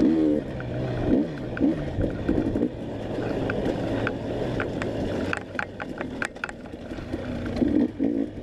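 Enduro dirt bike engine revving up and down with quick throttle changes, with a run of sharp clicks and knocks about five to six and a half seconds in.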